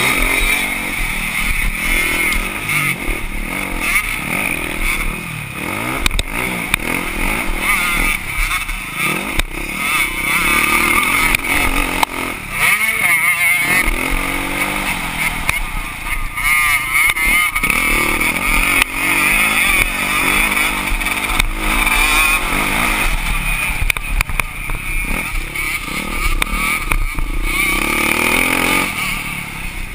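Motocross dirt bike's engine revving hard and backing off as it is raced around the track, its pitch climbing and dropping again and again, with wind rushing over the helmet camera's microphone.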